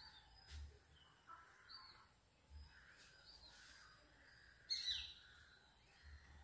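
Near silence with faint birds chirping in the background: short scattered chirps, with one louder call about five seconds in. A few soft low thuds also come through.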